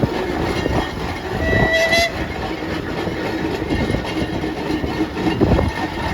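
Steam engines running, with a noisy rumble throughout, and a short single toot of a steam whistle about a second and a half in.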